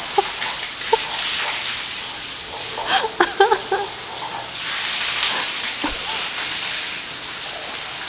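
Water pouring steadily from an overhead rainfall shower head onto a person in a tiled shower stall, swelling louder about a second in and again around five seconds. Brief vocal sounds break in about three seconds in.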